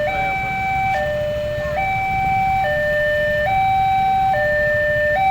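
A two-tone electronic telolet-style horn sounding a hi-lo siren pattern. The high and low notes alternate steadily, each held a little under a second, over a low rumble.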